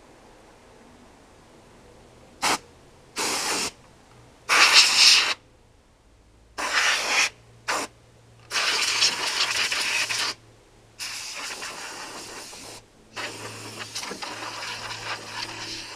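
Compressed-air blow gun hissing in about eight separate blasts, short at first and longer later, blowing mouse-nest debris out of a lawn tractor engine's cooling shroud. The loudest blast comes about five seconds in.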